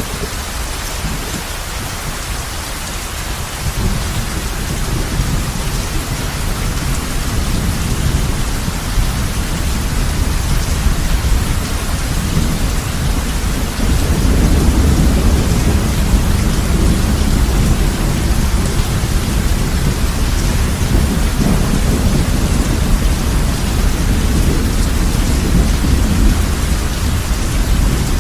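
Heavy rain falling steadily on a roof, with a low rolling rumble of thunder underneath that swells about four seconds in and grows louder again about halfway through.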